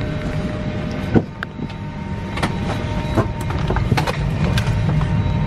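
Steady low cabin hum inside a parked Airbus A319, with scattered clicks and knocks and one sharp click about a second in.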